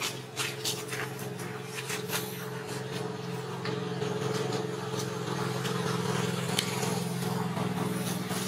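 Steady low engine-like hum that grows slightly louder, with scattered sharp clicks and crackles over it.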